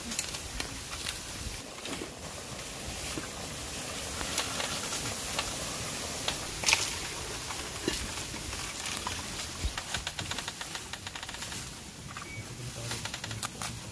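Camp cooking sounds: a steady hiss with scattered clicks and taps from knife and pot handling.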